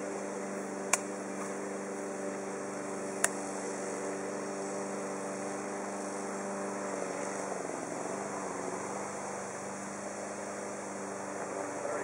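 Honeybee swarm buzzing, a steady hum, with two sharp clicks about one and three seconds in.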